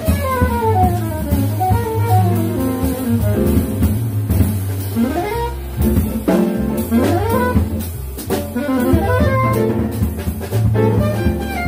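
Live jazz combo: a saxophone solos in fast runs of notes that sweep up and down, over upright bass, piano and drum kit.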